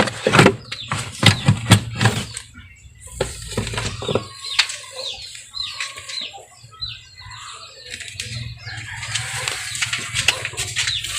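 Clicks, knocks and rustling from handling a car's plastic air filter housing and new paper air filter, with a cluster of sharp knocks in the first few seconds and a rustling stretch near the end.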